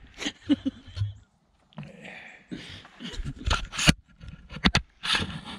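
Irregular scraping, rustling and knocking right on the camera's microphone: handling noise, with a calf nuzzling at the camera.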